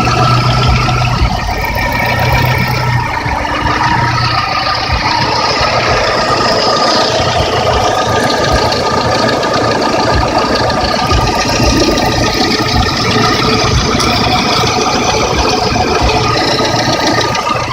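Lada VAZ-21126 1.6-litre 16-valve engine running warm at a steady idle, with a repeated knock from its STK aftermarket pistons. This is a piston knock, which the owner says is very loud from cold and quieter once the engine is hot.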